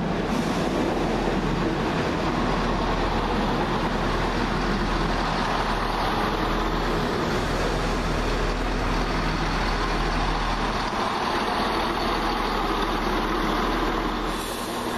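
Class 170 Turbostar diesel multiple unit arriving at the platform: its underfloor diesel engines running and its wheels rolling on the track, a steady, even noise with a low hum.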